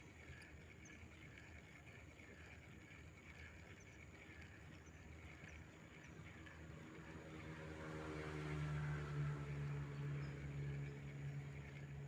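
A passing engine: a steady pitched hum that grows louder from about halfway, is loudest about three quarters in, then fades toward the end.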